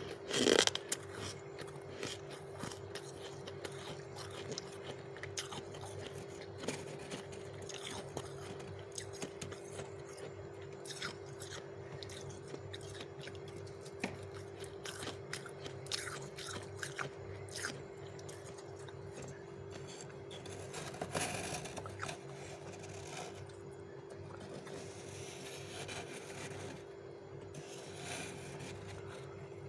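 Soft, snowy freezer frost being chewed: many small crisp crunches, a loud one about half a second in and a thicker run around two thirds of the way through, over a steady low hum.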